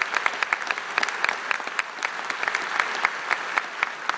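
Theatre audience applauding, with individual hand claps close by standing out sharply above the steady clapping of the crowd.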